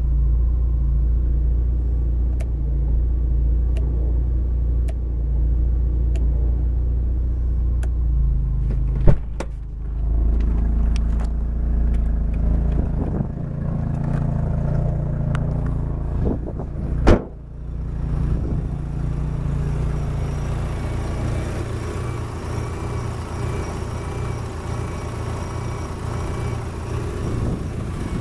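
Mazda RX-7 FD3S 13B-REW twin-turbo rotary engine idling steadily. Two loud thumps break in, one about nine seconds in and another about eight seconds later. After the second thump the idle sounds less boomy and more clattery.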